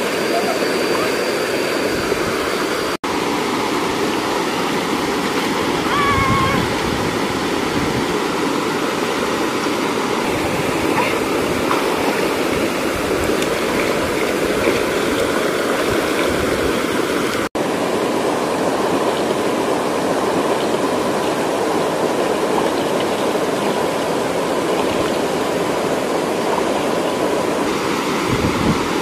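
Steady rushing of a small waterfall and stream pouring into a rock pool, with people's hands splashing the water.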